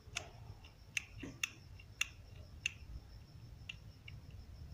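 Small plastic buttons on a mini Bluetooth speaker being pressed: about six quiet, sharp clicks at irregular intervals.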